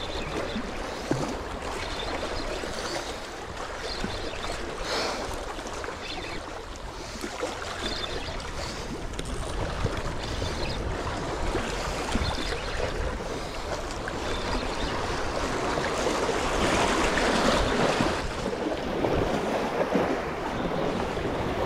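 Sea waves surging and splashing among concrete breakwater blocks, a steady wash that swells louder for a couple of seconds in the second half.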